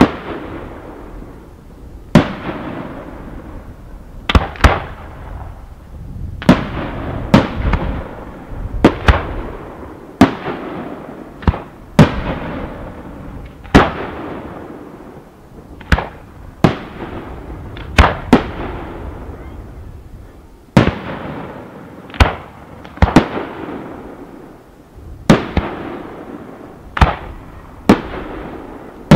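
Aerial firework shells bursting in a fireworks display: a sharp bang about once a second, sometimes two in quick succession, each trailing off.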